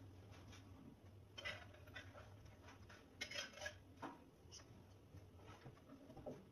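Metal ladle scooping stew out of a hollowed pumpkin and serving it onto a ceramic plate: a few faint clinks and scrapes, spaced out, over a faint low hum.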